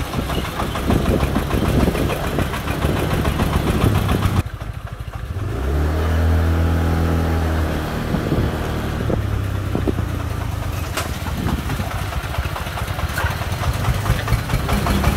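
Công nông farm truck's single-cylinder diesel engine running as the loaded truck drives along, with a brief drop in level about four and a half seconds in followed by a steadier engine tone.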